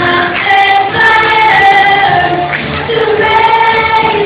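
Young girl singing a pop ballad into a handheld microphone, holding long notes.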